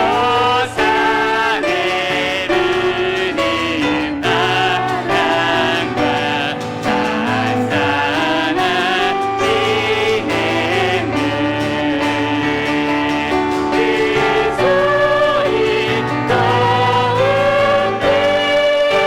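A church praise team of several voices sings a worship song with piano accompaniment, holding long notes that waver slightly in pitch.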